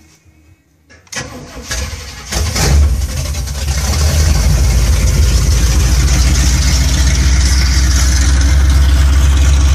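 A 454 V8 in a motorhome, cold on its first start of the day, cranked by the starter about a second in. It catches after about a second of cranking, rises in revs, then settles into a loud, steady idle through open headers with no exhaust fitted.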